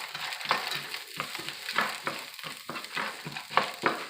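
Frozen peas and carrots sizzling in hot avocado oil in a frying pan, stirred in repeated strokes about twice a second.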